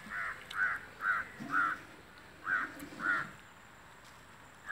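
Crow cawing: a run of four short, harsh caws about half a second apart, then two more after a short pause.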